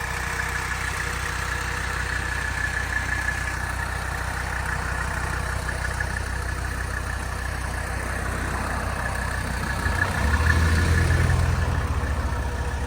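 A 1983 Mercedes-Benz 300CD's 3.0-litre turbodiesel inline-five idling steadily. About ten seconds in, it grows louder and deeper for a second or two, then settles back.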